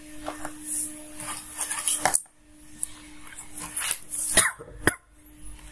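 Handling noise of a clamp multimeter and a small potentiometer being picked up and set on a tabletop: rustling with a few sharp clicks.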